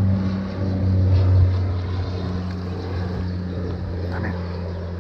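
A steady low motor-like hum with a deeper and a higher tone, louder in the first second and a half, over a faint hiss.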